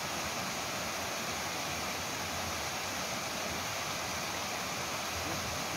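Steady rushing of water from a small forest stream running over little cascades.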